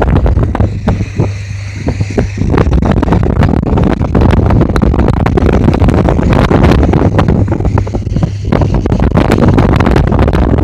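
Strong wind buffeting the microphone over the steady low drone of a tugboat's engine.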